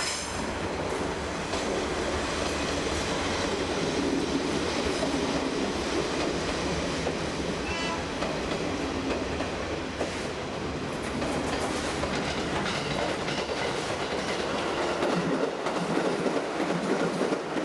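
A train running along the track past the level crossing, with a steady sound of wheels on rail.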